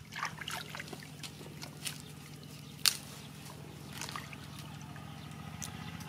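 A fish being washed by hand in shallow muddy river water: irregular splashing and trickling, with one sharper splash about three seconds in.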